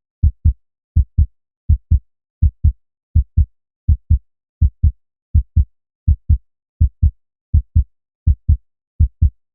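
Human heartbeat in a steady lub-dub rhythm, each beat a pair of short, low thumps with silence between, at about 80 beats a minute.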